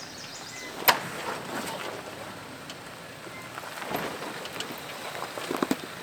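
Off-road truck creeping along a rocky dirt trail, with a steady rumble of tyres and a sharp knock about a second in, followed by a few smaller clicks.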